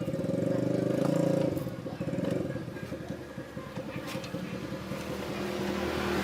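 An engine running steadily, loudest in the first second and a half.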